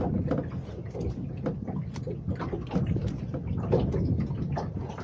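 Gusty wind rumbling on the microphone, with irregular light ticks and slaps scattered through it.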